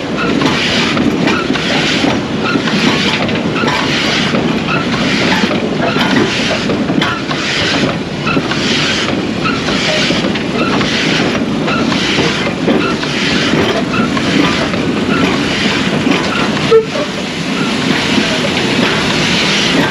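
Glover steam logging locomotive working slowly, its exhaust chuffing in an even beat about one and a half times a second over a steady hiss of steam and a low rumble. A single sharp clank comes near the end.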